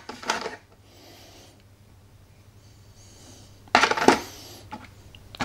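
Hard miniature scenery pieces clicking and clattering as they are handled and set down: a brief clatter at the start, a quiet stretch, then a louder sharp clack with a short ring at about four seconds.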